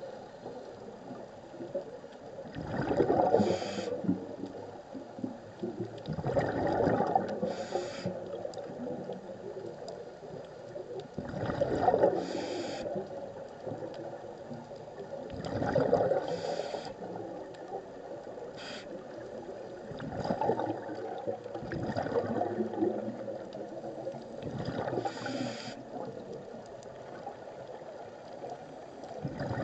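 Scuba diver breathing through a regulator underwater: a rushing, gurgling burst of exhaled bubbles together with a short hiss of the regulator, repeating about every four seconds.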